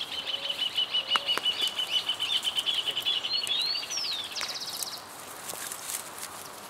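A bird singing: a long, fast run of repeated high chirping notes for about four seconds, then a couple of rising whistled notes and a short buzzy trill.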